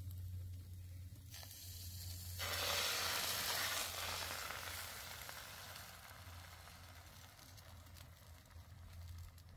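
Beaten egg poured into a hot grill pan of chopped green onion, sizzling: the sizzle turns loud about two seconds in as the egg hits the pan, then slowly dies down.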